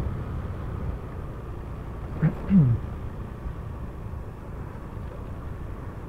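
Honda Supra X125 FI motorcycle riding along at a steady speed: engine and wind rumble on the rider's microphone. About two seconds in, a brief falling tone.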